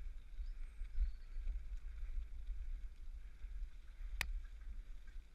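Wind buffeting the microphone of a bicycle-mounted GoPro and tyres rolling over a dirt path, a low uneven rumble, with a single sharp click a little over four seconds in.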